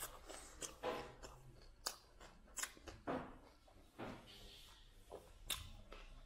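A person chewing a mouthful of raw broccoli: irregular crunches, with about five louder ones spread unevenly.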